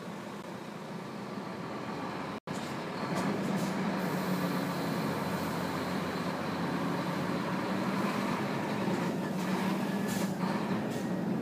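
Truck engine and road noise heard from inside the cab while driving, a steady drone with a low hum. The sound cuts out for an instant about two and a half seconds in, then carries on slightly louder.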